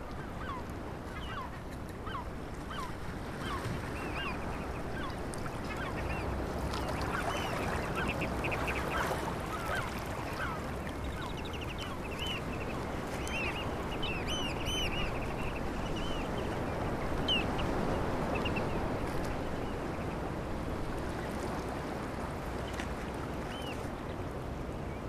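Small shorebirds calling: short, high, repeated notes that come in bunches and thin out toward the end. Under them is a steady wash of small waves lapping the shore.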